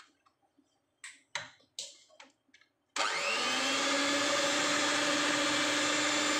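A few light knocks, then about three seconds in an electric hand mixer starts suddenly and runs at a steady speed, its beaters whipping cream in a bowl.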